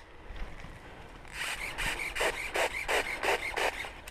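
Footsteps crunching through dry leaf litter and twigs, about three steps a second with a rasping scrape on each, starting about a second and a half in.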